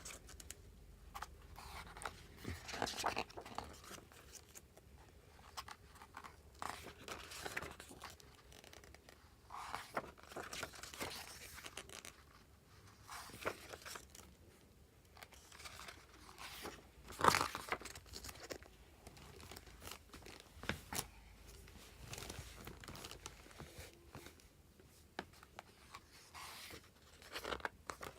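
Paper and plastic packaging of a photobook album being handled: irregular rustling and crinkling with bits of tearing. The loudest rustle comes about 17 seconds in.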